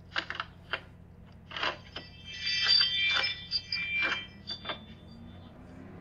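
A bunch of metal keys clicking and jingling: several sharp clicks, then bright, several-pitched metallic ringing for about two seconds in the middle.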